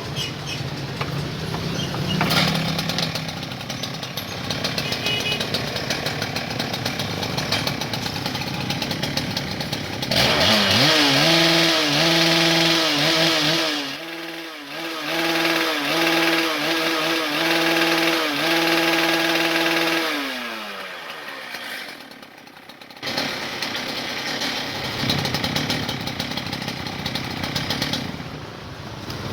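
STIHL TS800 cut-off saw's 98.5 cc two-stroke engine running unevenly at low speed, then revved up to a high, steady whine about ten seconds in and held there, dipping once briefly. About ten seconds later it falls back, and after a short lull it runs low again.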